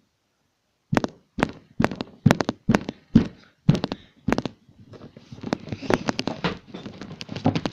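Sharp knocks close to the microphone, about two a second, followed by a denser scuffle of knocks and rubbing over the last few seconds: handling noise from someone moving right against the recording device.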